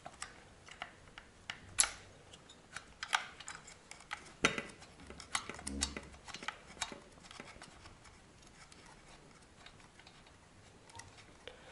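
Scattered metal clicks and taps of a combination plug wrench working loose a spark plug on a Husqvarna 555 chainsaw, where the plug has been tightened very hard. The sharpest click comes about two seconds in, and a cluster of clicks follows between about four and seven seconds.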